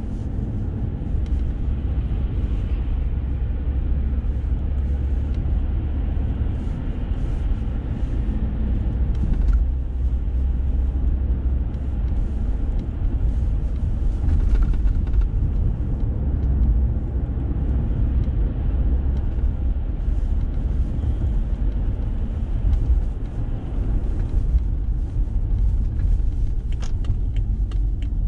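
Steady low rumble of a car's engine and tyres on the road, heard from inside the moving car, with a few light clicks near the end.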